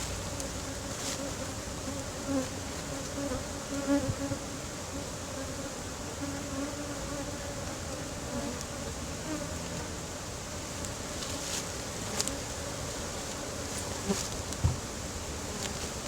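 Honeybees buzzing around an opened hive: a steady hum, with individual bees droning close by now and then. A few soft knocks are heard among the buzzing.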